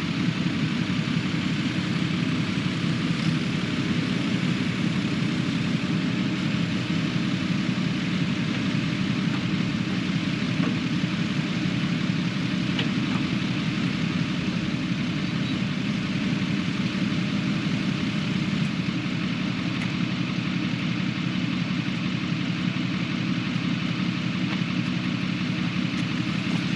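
Kubota KX080 excavator's diesel engine running at a steady speed while the machine is worked.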